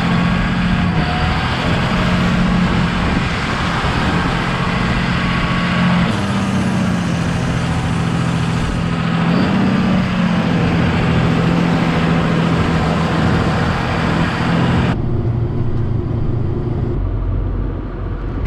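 John Deere tractor's diesel engine running steadily under load as it drives across the field, its pitch dipping and then rising twice in the middle. About three-quarters of the way through, the sound changes abruptly to a duller engine drone.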